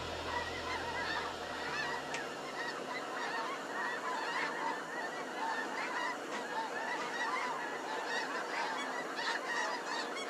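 A large flock of snow geese calling: a dense, unbroken chorus of many short honks overlapping at once.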